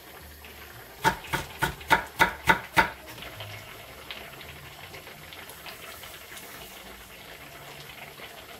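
Sundubu doenjang jjigae simmering in an earthenware pot, a soft steady bubbling hiss. About a second in comes a quick run of about seven sharp clicks, roughly three a second.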